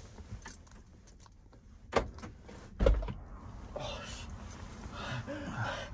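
Heard from inside an SUV: a sharp click and, about a second later, a dull thud as a person gets in at the rear door onto the back seat.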